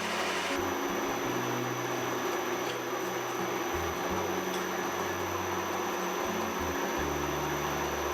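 Knee mill running steadily, counterboring screw holes in 3/4 inch hot-rolled steel plate.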